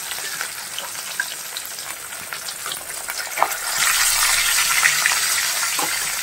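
Pieces of fish frying in hot oil in a kadai: a steady sizzle with scattered pops, growing louder about four seconds in.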